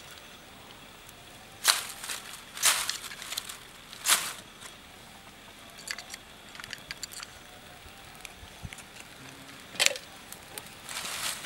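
Lighting a pile of dry leaves and twigs: a few short, sharp scratchy strikes and rustles as a lighter is worked at the kindling, then faint crackling as the leaves catch near the end.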